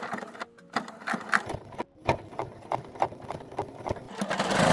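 Domestic sewing machine top-stitching slowly through a folded, pinned coat cuff, its needle going about three strokes a second. Near the end it runs faster as one louder, steady sound.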